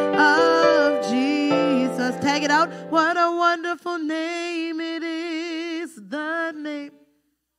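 A small choir of men's and women's voices singing a worship song in harmony, with a keyboard holding low notes under the first few seconds. After the keyboard drops out the voices sing on alone, then the sound cuts off to silence near the end.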